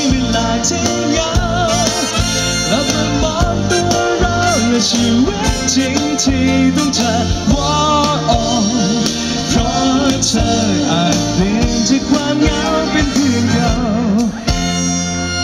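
Live band playing a pop-rock song: a male singer sings into a handheld microphone over electric guitar, electric bass and drum kit. Near the end the drumming stops and held notes ring on.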